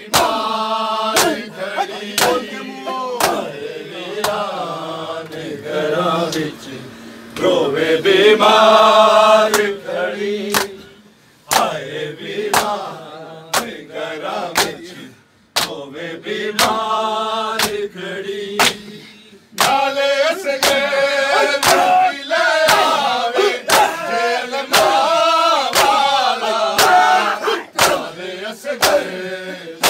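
Men chanting a noha, a mourning lament, with the sharp slaps of chest-beating (matam) striking in a steady beat under the voices.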